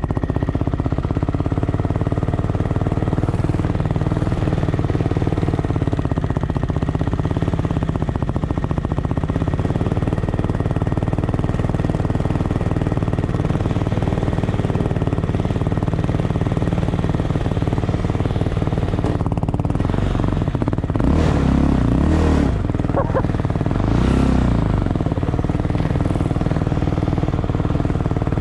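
A quad's single-cylinder engine idling steadily close to the microphone, with two short bursts of revving from a quad about three quarters of the way through, as a quad is ridden through snow close by.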